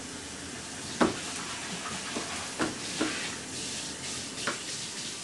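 Steady hiss with about five light knocks and clicks scattered through it, the sharpest about a second in.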